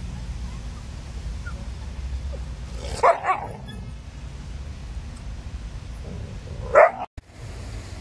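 A dog barks: a quick double bark about three seconds in and one louder bark near the end, over a steady low rumble.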